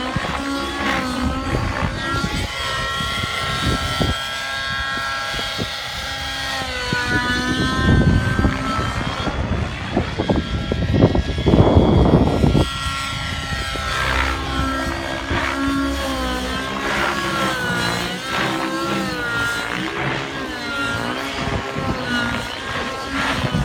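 Synergy N7 nitro RC helicopter in flight, its engine and rotor note rising and falling in pitch as it is thrown through aerobatic manoeuvres. A stretch of louder rushing noise comes around the middle.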